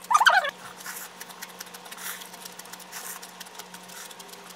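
A short, squeaky slurp of noodles in the first half-second, then quiet chewing with small mouth clicks over a faint, steady low hum.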